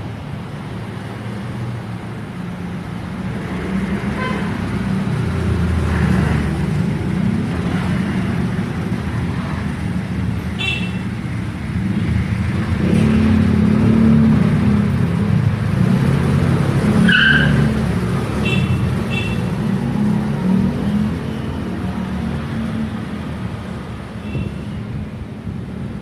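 Road traffic: a low rumble of passing vehicles that swells and fades, with a few brief high chirps scattered through it.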